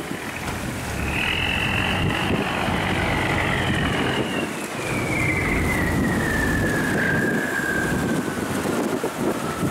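Barge engine rumbling steadily, with wind on the microphone. A high whine starts about a second in and slides slowly down in pitch.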